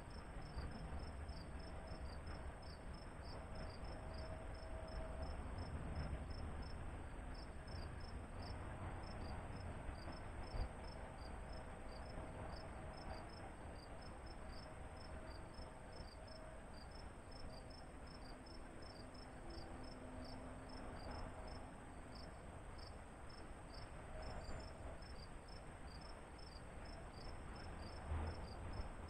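Cricket chirping in an even rhythm, about three short high chirps a second, over a low steady rumble.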